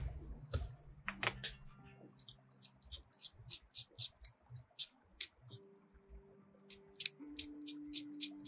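Background music: soft sustained chords that change a few times, over a light, evenly spaced ticking beat.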